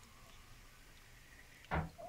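Quiet background, then a single short knock near the end.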